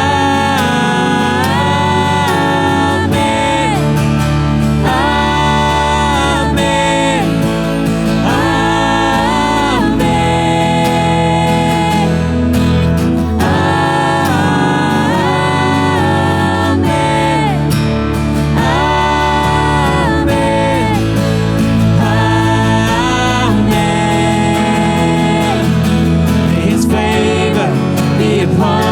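Worship band playing with singers holding long, gliding notes over a steady, sustained bass.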